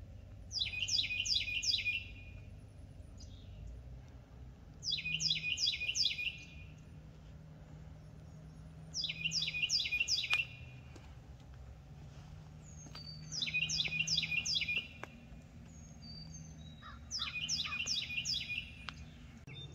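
A songbird singing the same short song five times, about every four seconds. Each song is a quick run of four or five repeated falling notes.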